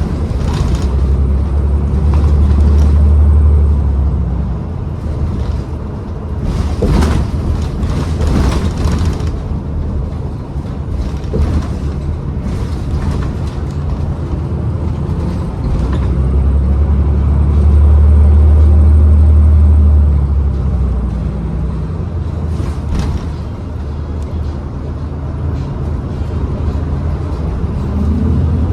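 Interior ride sound of a 2012 New Flyer XDE40 diesel-electric hybrid transit bus under way. A low drivetrain drone swells loudly twice, in the first few seconds and again about two-thirds of the way through. Short rattles and knocks come in between.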